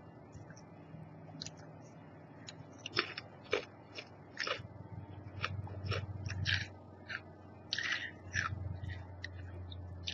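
Person chewing crunchy chips: an irregular run of crisp crunches spaced through the chewing.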